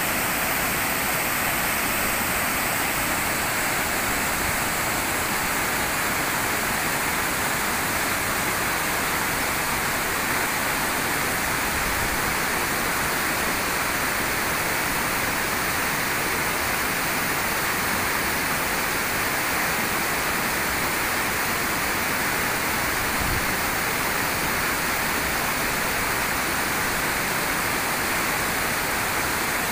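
Waterfall: the steady rush of falling water, with no letup.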